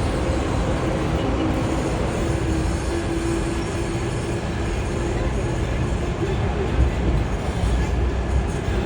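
Passenger tram in motion, heard from on board: a steady rolling rumble with a faint hum that holds steady through the middle.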